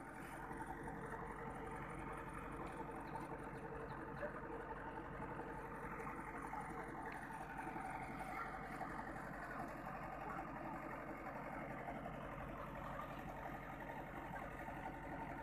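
Backhoe loader's diesel engine running steadily, with faint voices mixed in.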